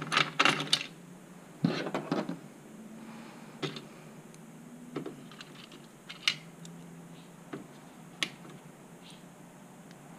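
Light clicks and knocks of small metal parts and hand tools being picked up from a plastic parts tray and handled on a table: a cluster of knocks in the first two seconds, then single sharp clicks every second or so.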